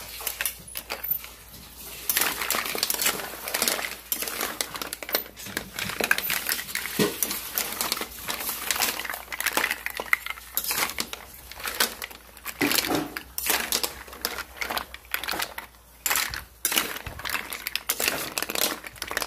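Kitchen clatter: cookware and utensils knocking and scraping in quick, irregular bursts, with some rustling.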